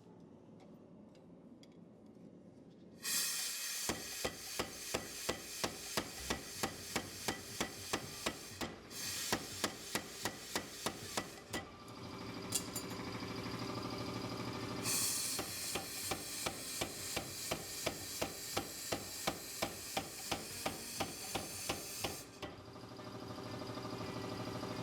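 Hand hammer striking hot W2 steel on an anvil, forging a knife blank: a run of steady blows about two and a half a second, a pause of about three seconds, then a second run of blows. A steady hiss runs under the hammering.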